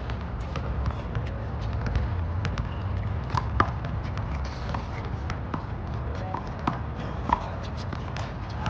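Handball rally: a small rubber ball being slapped by hand and smacking off the wall and court in scattered sharp hits, the loudest about three and a half seconds in, over a steady low rumble.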